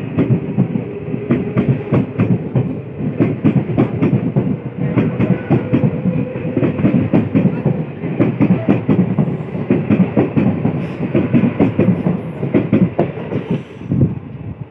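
Electric multiple-unit (EMU) local train passing at speed, its wheels clattering in a rapid, continuous run of knocks over the rail joints. The clatter drops off sharply near the end.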